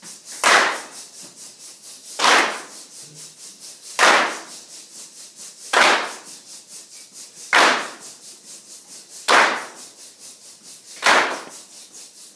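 Loud hand claps at an even, steady pulse, seven in all, about one every 1.8 seconds, each ringing briefly in the room. Faint quicker regular ticks run between them.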